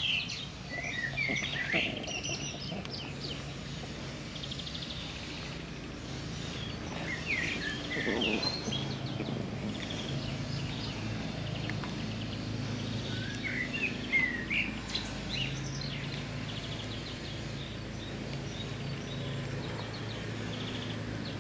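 Garden songbirds calling and singing: short chirps and quick trills come and go throughout, over a steady low hum.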